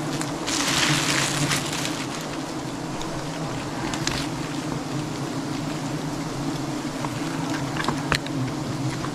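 A swarm of honeybees buzzing steadily around their cut-open nest, their angry drone hanging in the air. A rustling hiss rises for a second or so near the start, and a few sharp clicks come later.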